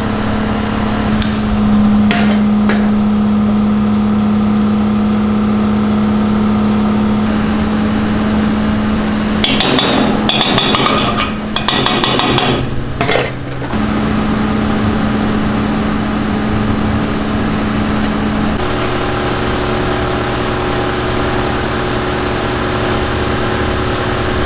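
Cotton candy machine's spinning head running with a steady motor hum. About ten seconds in come a few seconds of louder scratchy, clattering noise.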